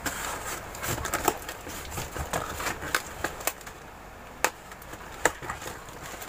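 Box cutter slitting the packing tape on a cardboard shipping box, with irregular sharp clicks and knocks as the box is handled, and the cardboard flaps pulled open near the end.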